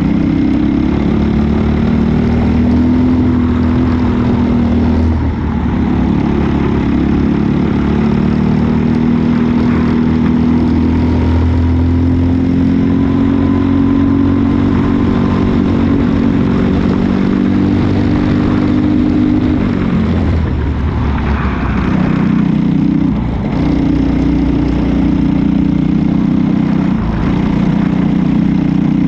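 Onboard sound of a racing kart's Briggs & Stratton LO206 single-cylinder four-stroke engine at full race pace. Its pitch climbs steadily as the kart gathers speed and falls back sharply about five seconds in, again about twenty seconds in, and briefly a few seconds later, as the kart slows for corners.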